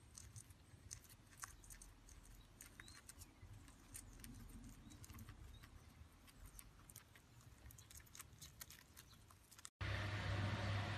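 Guinea pig chewing hay: quick, irregular crunching clicks. About ten seconds in, this cuts off suddenly and a louder steady low hum with hiss takes over.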